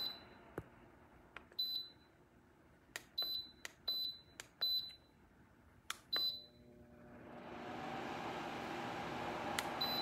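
Lasko tower fan-heater's controls beeping: about six short, high electronic beeps, each with a sharp click, as the settings are stepped through to fan mode. From about seven seconds in, the fan spins up and settles into a steady whoosh with a low hum.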